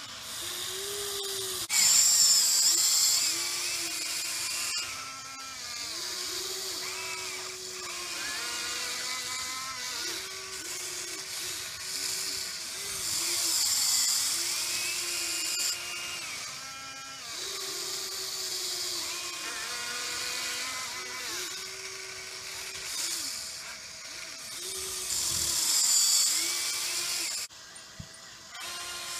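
Small electric motors of an RC excavator whining in short runs as the boom, arm and bucket move. The whine starts and stops every second or two and slides up and down in pitch. Louder, shriller spells come a couple of seconds in, about halfway, and near the end.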